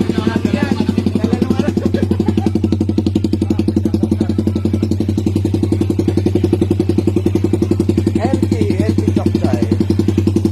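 Suzuki Raider 150 single-cylinder motorcycle engine idling steadily through an aftermarket exhaust pipe, with an even, rapid exhaust pulse.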